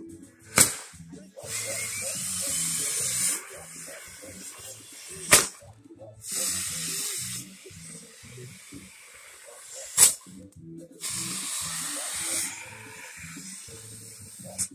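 Fireworks going off: three sharp bangs about five seconds apart, each followed a second later by a couple of seconds of fizzing hiss as the sparks spray. Music plays underneath.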